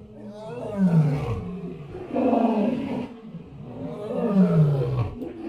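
Lion roaring: three long calls in a row, each falling in pitch.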